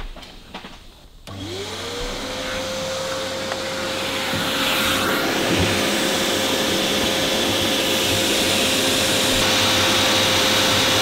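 An electric motor spins up about a second in and then runs at one steady speed, a constant hum over a hiss that grows slowly louder.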